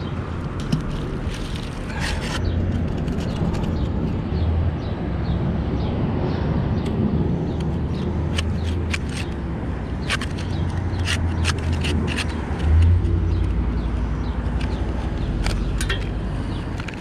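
Gloved hands scraping and crumbling caked mud off a corroded curved metal find pulled up by a magnet, a scattered run of small clicks and scrapes over a steady low rumble, with one louder low thump about three quarters of the way through.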